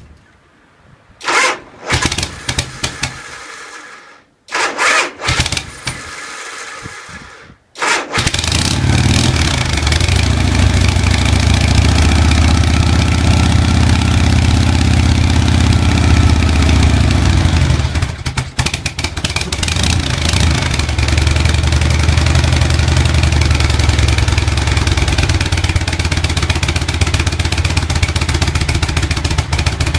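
Harley-Davidson FXB Sturgis Shovelhead V-twin, fitted with a stock-style silencer, being started: two short bursts that die away, then it catches about eight seconds in and runs steadily, with a brief dip around the middle.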